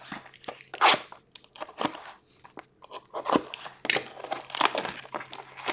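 A 2021-22 Upper Deck Allure hockey hobby box being opened by hand: irregular crinkling, crunching and tearing of its wrapping and cardboard, in scattered short bursts, thicker in the second half.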